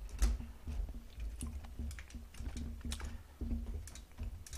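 Close-up chewing with a regular rhythm of soft, wet thuds, mixed with scattered sharp clicks and taps of chopsticks picking through fried chicken in a foil-lined box.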